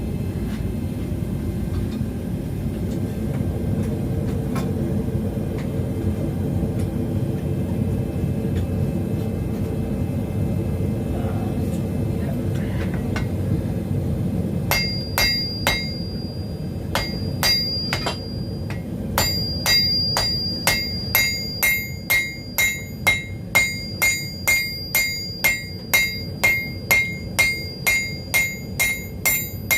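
A gas forge's burner running with a steady rush of noise. About halfway through, a hammer starts striking hot steel on an anvil: a few scattered ringing blows, then a steady rhythm of about two blows a second, hammering the flux-coated billet to set a forge weld.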